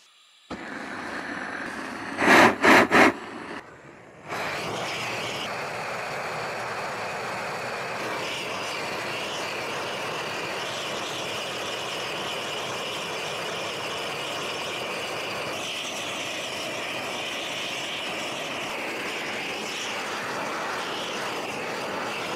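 A quick run of loud knocks about two seconds in, then a gas torch flame burning with a steady rushing hiss, heating the rock to try to crack the vein out.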